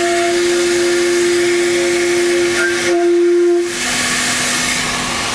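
A flue pipe of a Midmer-Losh organ mixture stop, on 30 inches of wind pressure, sounds one loud steady note over a strong rushing hiss of wind at the pipe mouth while a pipe-cleaner mute is worked back in; the wind keeps trying to blow the mute away. A little under four seconds in, the strong note cuts out as the pipe is muted, leaving the hiss and a fainter lower tone.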